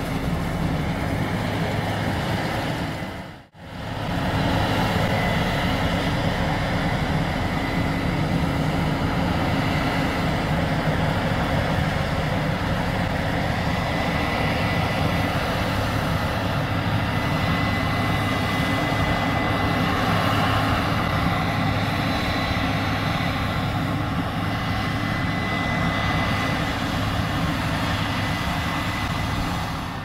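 Steady, loud machine noise: a low hum with a thin high-pitched whine over it, dropping out briefly about three and a half seconds in before resuming unchanged.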